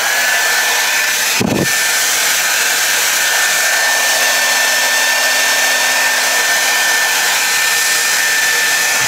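Handheld hair dryer running steadily, a constant rushing blow with a high whine, with one brief bump about a second and a half in.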